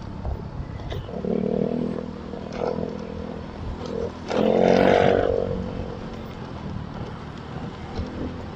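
Motorcycle riding in traffic: steady engine and road noise with other vehicles' engines around, and a louder pitched sound swelling about four seconds in.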